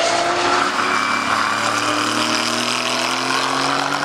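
Aston Martin Vantage GT3 AMR race car at speed, its Mercedes-AMG 4.0-litre twin-turbo V8 running loud and steady as the car approaches and passes, the engine note sinking slowly in pitch.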